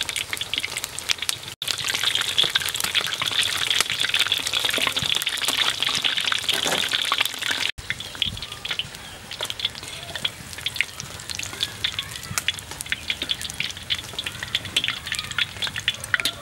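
Battered pumpkin flowers deep-frying in a wok of hot oil: a dense crackle of sizzling. It cuts out for an instant twice, and is a little quieter for the second half.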